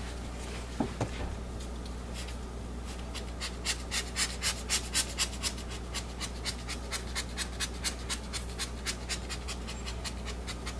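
Quick, repeated puffs of air from a squeezed glitter puffer bottle dusting glitter over the top of freshly poured soap, about three puffs a second, starting about two seconds in.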